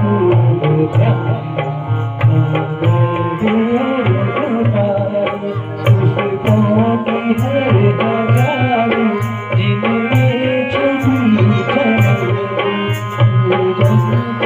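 Live accompaniment music: a tabla keeps a steady rhythm of strokes under a sustained, wavering melody line.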